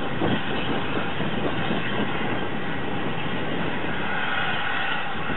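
Steam locomotive pulling away, its exhaust and escaping steam giving a steady loud rushing noise.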